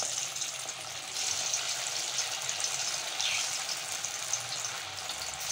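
Poha pakoras frying in hot oil in a kadhai: a steady sizzle that grows louder about a second in.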